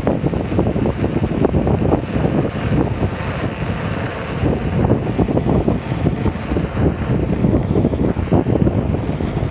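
Wind buffeting the microphone, with tyre and road rumble, from a rider moving along a paved road. It is a loud, unsteady rumble that flickers rapidly, with no clear motor tone.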